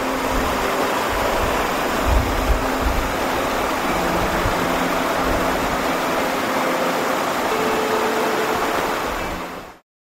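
Small waterfall, about two metres high, pouring steadily over rocks with an even rushing splash, fading out just before the end. A few brief low rumbles come about two seconds in.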